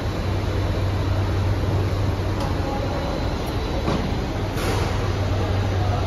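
Automatic heat shrink packing machine running: a steady low hum under an even mechanical noise, with a few light clicks and knocks around the middle.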